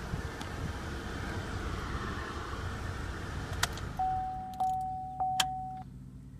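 Low steady hum and rumble, then a sharp click about three and a half seconds in. An electronic warning chime from the Chevrolet Traverse's dashboard follows: one steady tone lasting about two seconds, with a few clicks over it.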